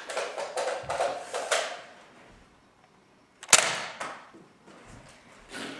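Foam-dart blaster play: a few quick clicks and rattles in the first second and a half, then one sharp, loud snap of a Nerf blaster firing about three and a half seconds in.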